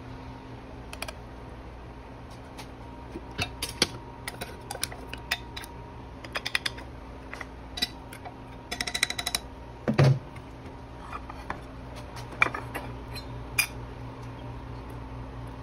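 Scattered clicks and light clatter of small hard objects being handled over a steady hum, with a quick run of rapid clicks about nine seconds in and a dull thump just after.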